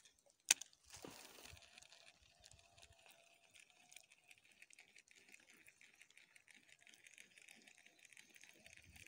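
Meredith baitcasting reel being wound in, a faint rapid ticking, after one sharp click about half a second in.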